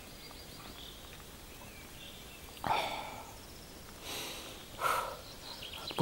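A man stifling a fit of laughter: three short, breathy snorts and sniffs through the nose, the first and sharpest about two and a half seconds in, the others near the end.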